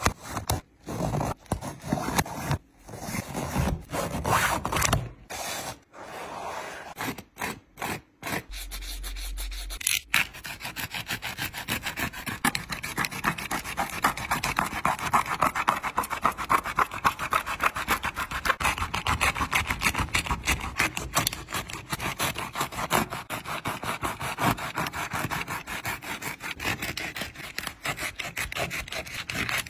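For the first ten seconds, shoelaces are pulled out of a Nike Zoom Fly 4 running shoe in short rubbing swishes with gaps between them. After that, a flat-bladed tool scrapes rapidly back and forth along the glued seam between the knit upper and the foam midsole, prying the two apart.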